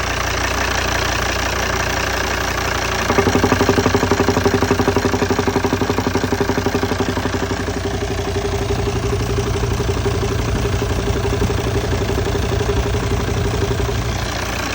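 Volvo XC90 D5's five-cylinder turbodiesel engine idling. About three seconds in, a rhythmic pulsing knock joins the engine sound and keeps going until near the end. It is typical of the engine knocking noise the car is being fixed for.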